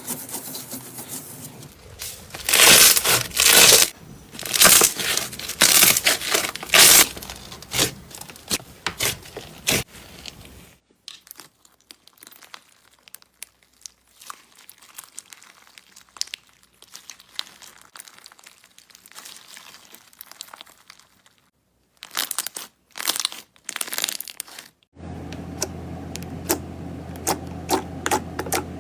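Slime being squeezed, stretched and pressed by hand, giving dense crackling and popping. The crackling is loudest in the first several seconds and much quieter through the middle, with short loud bursts again near the end, where a low steady hum joins it.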